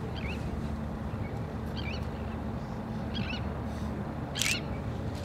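Short chirping bird calls, about one every second and a half, the loudest about four and a half seconds in, over a steady low rumble.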